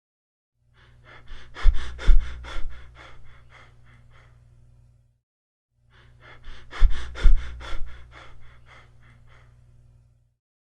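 Stethoscope recording of a patient's breath sounds, the same breath cycle played twice. Each lasts about four and a half seconds, with a rapid run of sharp clicks over its loudest part.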